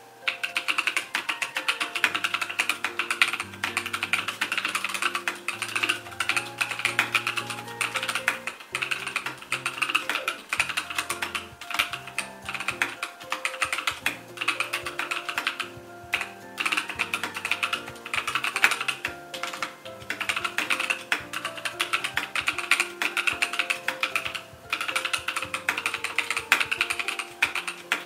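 Fast typing on a Keychron K6 wireless mechanical keyboard: a dense, steady run of key clacks at about 61 words a minute, with a few short pauses, that starts about half a second in. Soft piano background music plays underneath.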